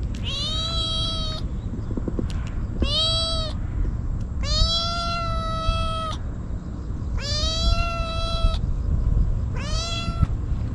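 Black-and-white stray kitten meowing over and over, crying out insistently. There are five drawn-out meows about a second apart, and the third is the longest.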